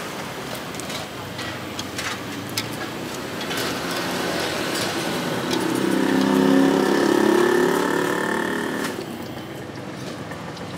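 Omelette frying in hot oil in a wok, a steady sizzle with a few clicks and scrapes of a metal spatula on the wok in the first few seconds. From about halfway, a vehicle engine swells up and fades away over about three seconds and is the loudest sound.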